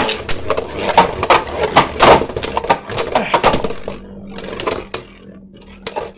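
Two spinning Beyblade tops, a 3D-printed Hero Samuraizor and a Super Hyperion, clashing in battle: rapid, irregular clacks and rattles of the tops striking each other, thinning to occasional hits about four seconds in as the round winds down.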